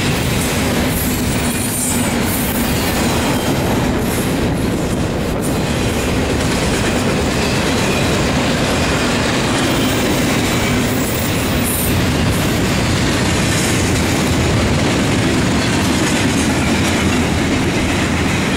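Double-stack intermodal train of container-laden well cars rolling past at close range: a steady rumble and clatter of steel wheels on the rails.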